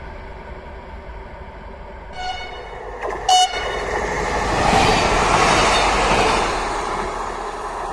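A train gives two short horn toots, about two and three seconds in, the second louder. Then it passes, its running noise swelling to a peak and fading.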